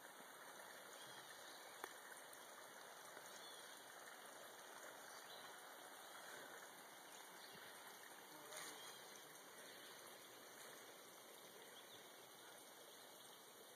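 Faint, steady rush of a river running over rocks and shallow riffles, with a single faint click about two seconds in.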